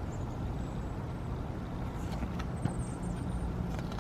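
Steady low background rumble and hum, with a small click about two and a half seconds in.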